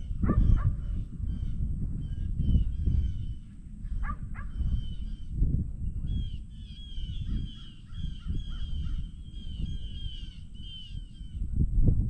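Birds calling: many quick, repeated high chirps, thickest in the second half, over a steady low rumble.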